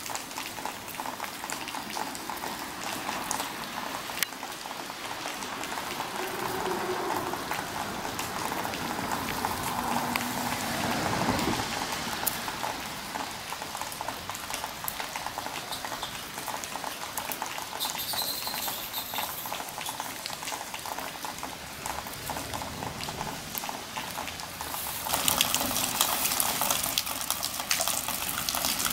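Light rain falling on grass and leaves: a steady hiss dotted with many small drip ticks, growing louder near the end.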